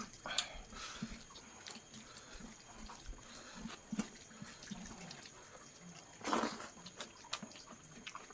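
A person eating chicken close to the microphone: scattered wet mouth clicks and chewing ticks, with one louder, noisier smack or crunch about six seconds in.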